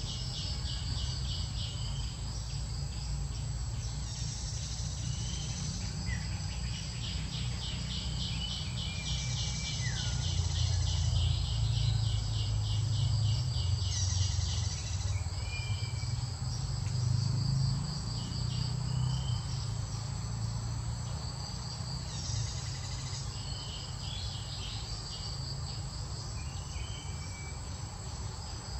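Insects calling in rapid, high pulsed trills that start and stop in bouts, with a few short bird chirps. A low rumble runs underneath and swells in the middle.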